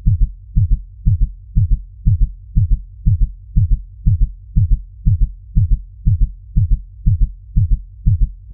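Heartbeat sound effect: a fast, steady lub-dub pulse of low double thumps, about two beats a second.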